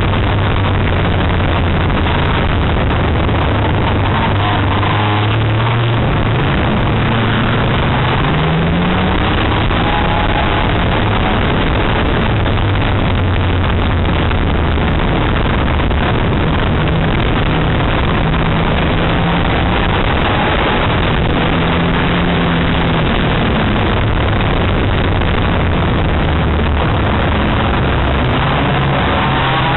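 Banger racing car's engine heard from inside its stripped cabin at race speed, the revs rising and falling through the bends. Heavy road and tyre noise runs under it throughout.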